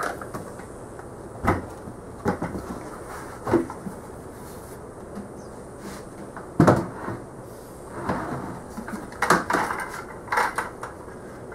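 Plastic five-gallon buckets being handled: a series of separate knocks and scrapes as the top bucket of a two-bucket cyclone separator is lifted off the bottom bucket and set down, then the bottom bucket is picked up. The loudest knock comes a little past halfway, with a quick cluster of knocks near the end.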